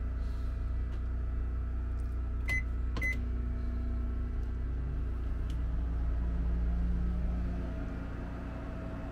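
Two short keypad beeps from a Panasonic 1000 W microwave oven, then the microwave running empty with a steady hum as a load test on the boat's generator. Under it, the low steady drone of the Westerbeke 7.2 kW gasoline generator running.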